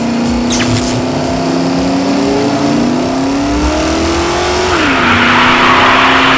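Cartoon vehicle engine sound effect whose pitch climbs slowly as if revving, then drops back about three-quarters of the way through. A hiss starts near the end.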